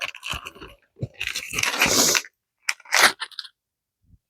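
Small plastic packaging bag being handled and torn open, crinkling in several irregular bursts that stop near the end.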